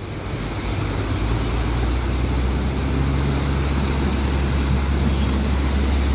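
Pickup truck engine running steadily as the truck wades through deep floodwater, its wheels pushing water that washes and sloshes alongside. The engine hum grows louder about a second in as the truck comes close.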